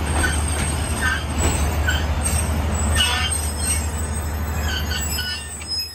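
Passenger train moving slowly through a station, its wheels giving short high squeals on the rails over a steady low rumble.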